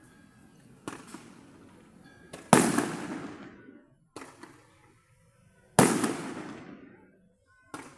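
Aerial fireworks bursting: two loud booms about three seconds apart, each trailing off over a second or so, with fainter pops in between.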